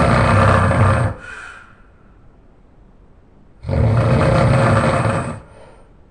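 A person snoring loudly: one snore ends about a second in, and a second snore of about two seconds starts a little past the middle.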